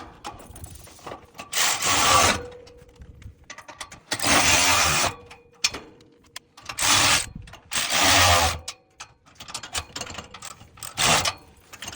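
Hand ratchet wrench tightening the U-bolt nuts on a bumper-mount bracket, in about five short ratcheting bursts with pauses between.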